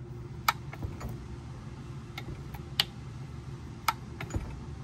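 Wilson pre-selector gearbox's internal gear-change mechanism worked by hand: a handful of sharp clicks, spaced irregularly about a second apart, as the struts and bus bar snap into and out of the brake-band linkages while gears are selected.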